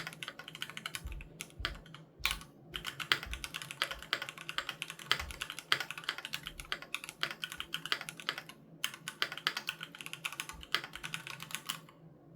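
Typing on a Keychron Q3 Knob mechanical keyboard with Gateron G Pro Red linear switches: a quick run of keystroke clacks with a couple of brief pauses, stopping shortly before the end.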